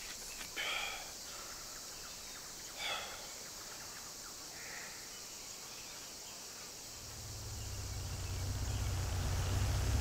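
Jungle ambience with a steady high hiss and two brief soft sounds, about one and three seconds in; from about seven seconds in a deep rumble swells steadily louder.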